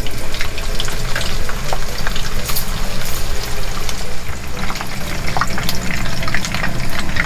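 Small pieces of kisu (Japanese whiting) deep-frying in a pan of hot oil: a steady sizzle dotted with many small irregular crackles and pops.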